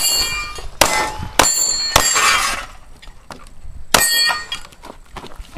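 Pistol shots fired at steel plate targets, the hits ringing with a metallic clang. A quick string of shots comes in the first two seconds, then after a pause one more shot rings out about four seconds in.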